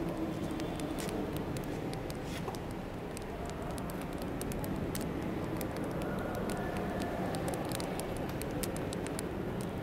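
Scattered small clicks and rustles of a leather handbag being handled and opened, over a steady low background rumble.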